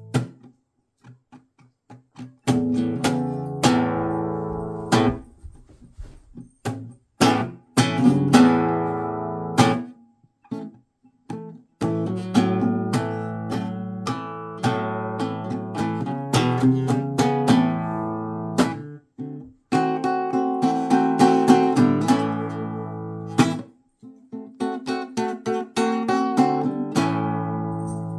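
Guitar played in a blues style: strummed chords and picked notes in phrases broken by short pauses.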